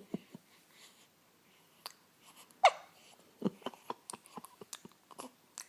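A newborn baby hiccups once about halfway through: a short, sharp squeak that drops in pitch. Then comes a run of small, quick clicks.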